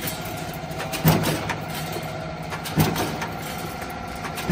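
Mechanical power press stamping steel strip fed from a coil in a hinge neck mold. A heavy knock comes with each stroke, about every 1.7 seconds (three times), over the steady hum of the running press and feeder.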